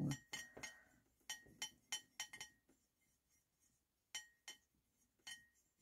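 Paintbrush tapping and clinking against a ceramic plate while watercolour paint is mixed on it: a run of light, quick taps in the first two and a half seconds, then a few more spaced out later, some with a faint ring.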